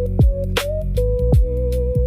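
Background music with a beat: deep kick drums that drop in pitch, sharp snare-like hits and a held, wavering synth melody over sustained bass.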